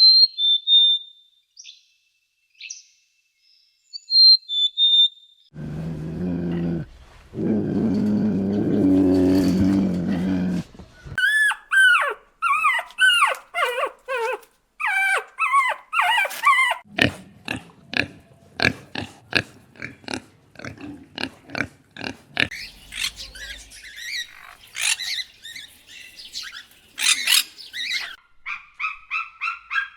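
Several different animal calls one after another: a few short high chirps, then a low, pitched call lasting about five seconds, then a long run of quick repeated calls, the first of which fall in pitch.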